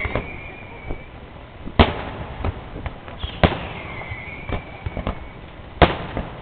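Fireworks display: three loud bangs of bursting shells, the last the loudest, with smaller pops between them and a whistle that falls in pitch and then levels off in the middle.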